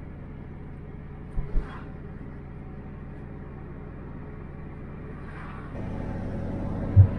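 Car driving, with steady engine and road rumble heard from inside the cabin. There are two short low thumps about one and a half seconds in, and the rumble grows louder near the end.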